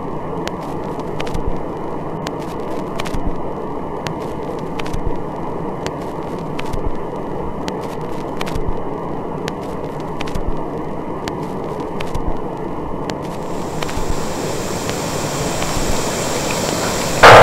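Steady outdoor background noise, with a faint click about once a second.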